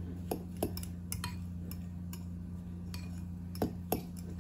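A utensil stirring breadcrumbs and melted butter in a glass measuring cup, clinking and scraping against the glass: several light clinks in the first second and two louder ones near the end, over a steady low hum.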